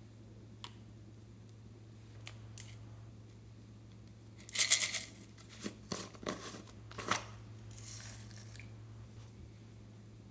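Plastic screw cap of a novelty bottle of foam beads being twisted open: a loud grating rattle about four and a half seconds in, then several sharp plastic clicks, and a brief rustle a little later.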